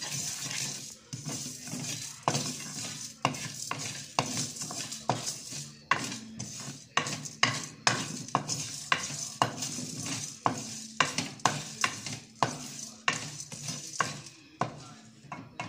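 Wooden spatula scraping and stirring whole fennel seeds, black peppercorns and cumin in a metal pan, a quick run of scrapes about one or two a second, over a steady sizzle as the spices fry lightly in oil.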